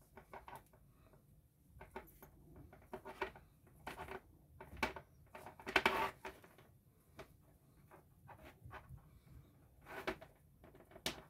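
Faint, irregular rustles and small clicks of coaxial cable being handled as the braided shield wires of two cable ends are twisted together by hand.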